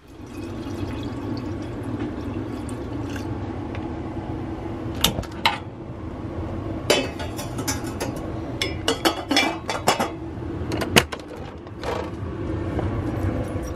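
Kitchen sounds: dishes and cutlery clinking and clattering several times over a steady low rushing noise, as the gas stove is lit for morning coffee and tea.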